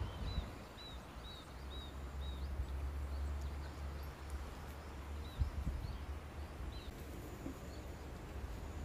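A small bird calling outdoors with short, high chirps: a run of about two or three a second in the first couple of seconds, then a few scattered ones later. A low rumble runs underneath for a couple of seconds near the start.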